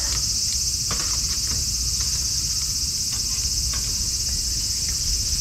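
A steady, high insect chorus, with faint scattered crackles from a wood fire.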